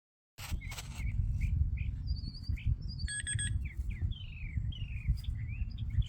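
Songbirds chirping and calling in quick short slurs, over a steady low rumble of wind or handling noise on the microphone. About three seconds in, a brief steady beep sounds.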